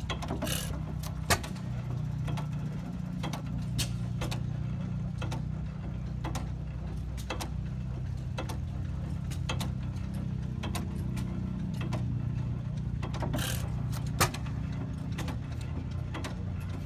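Economy hit-and-miss stationary gas engine running: sharp mechanical clicks about twice a second over a steady low rumble, with two longer, louder bursts, one near the start and one about thirteen seconds in.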